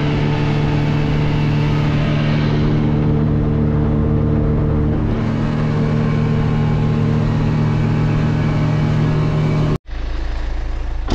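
A boat engine running at a steady speed, one even drone throughout, which cuts off suddenly near the end and is followed by a lower rumble.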